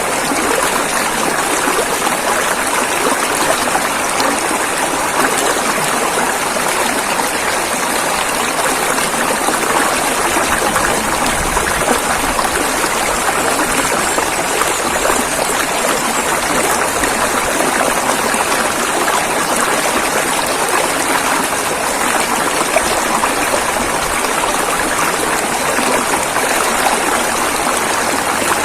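River water flowing and rushing over rocks, a steady, even splashing.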